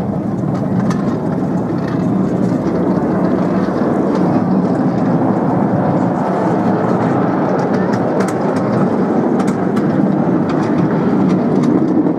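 Ride-on miniature railway train running along its track: a steady rumble of wheels on the rails, with a few light clicks about eight to ten seconds in.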